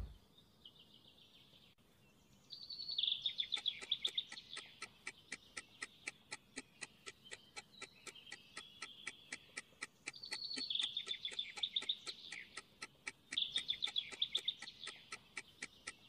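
Countdown timer ticking steadily, about three to four ticks a second, over a birdsong track of birds chirping in bursts of rapid high trills.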